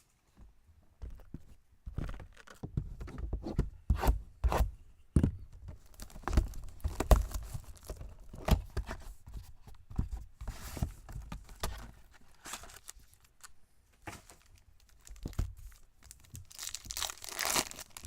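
Trading-card packaging being torn open and crinkled: shrink-wrap and pack wrappers ripped and handled in a run of irregular tears and crackles, with a short pause about two-thirds of the way through.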